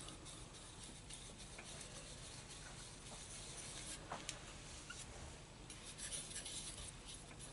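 Faint scraping and smearing of a metal palette knife spreading oil paint across a palette, with a couple of small clicks about four seconds in.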